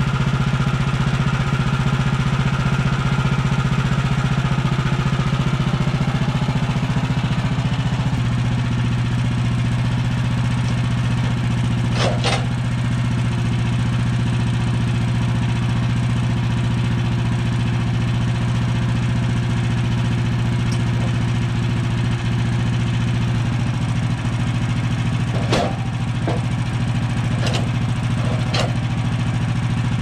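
Woodland Mills HM130MAX bandsaw mill's gas engine running steadily, its pitch dropping slightly about eight seconds in. A few sharp knocks as lumber is handled, one near the middle and three close together near the end.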